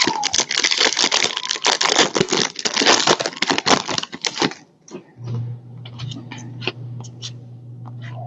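Trading card pack wrappers being crinkled and torn open, a dense crackling rip lasting about four and a half seconds. After that come a steady low hum and scattered light clicks.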